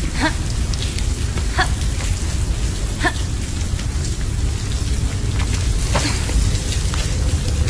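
Video-game cave ambience: a steady deep rumble under a wash of noise, with a handful of sharp, echoing water drips scattered through it.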